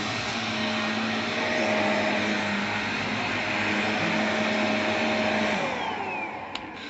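VOLUEX Jimmy JV35 handheld anti-mite vacuum running steadily with a motor whine. About five and a half seconds in it is switched off and its motor winds down, the pitch falling away. There are a couple of light clicks near the end.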